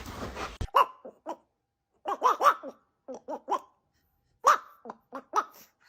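A dog barking: about a dozen short barks in quick runs of two to four, with brief pauses between the runs.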